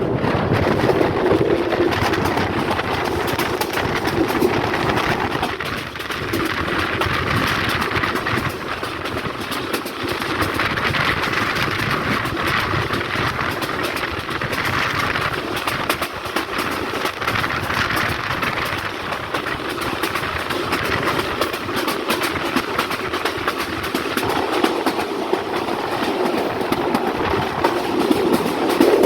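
Bangladesh Railway passenger train running on the line: a steady rumble with the rapid clickety-clack of wheels over the rail joints.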